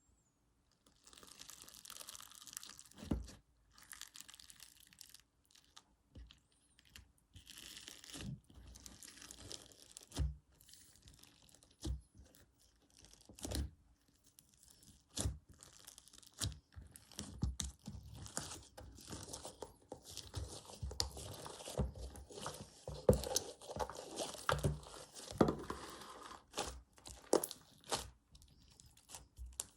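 Slime being squeezed, stretched and popped by hand: stretches of sticky crackling and tearing, broken by short pauses, with sharp pops every second or two.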